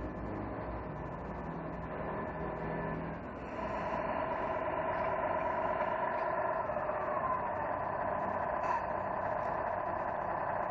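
Tamiya 1/14 King Hauler radio-controlled truck driving up to the microphone, with a steady mechanical whine. The whine grows louder about three and a half seconds in as the truck comes close.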